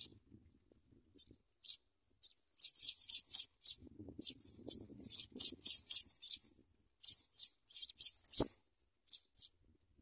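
African pipit nestlings begging with rapid high-pitched cheeps in quick runs, starting about two seconds in and going on until near the end. A soft rustle comes partway through, and a single sharp click near the end.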